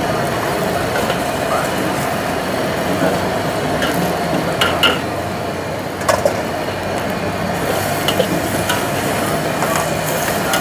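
Long metal spatula stirring and scraping a large steel wok as rice vermicelli and Chinese kale are stir-fried, with a few sharp clanks against the wok about halfway through. Underneath is a steady rush of noise from the cooking over the burner.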